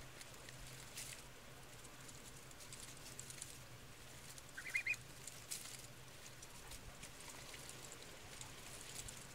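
Domestic geese pecking and tugging at a tomato plant: faint rustling of leaves and small pecks, with a brief burst of three or four quick short honks about halfway through.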